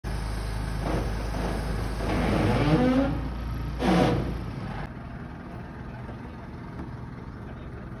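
Crane engine running steadily as it hoists a heavy load, with louder sweeping sounds about two and four seconds in. About five seconds in, it gives way abruptly to a quieter background.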